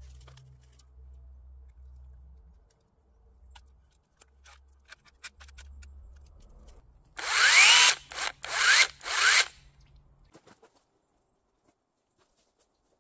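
Parkside cordless pole saw motor triggered in a few short bursts over about two seconds, whining up in pitch as the motor spins up each time.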